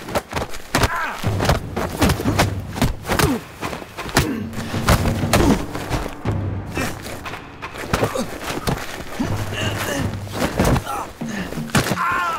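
Staged fight: punches, kicks and falls land as a rapid, irregular run of thumps, with short grunts of effort, over a low, steady music score.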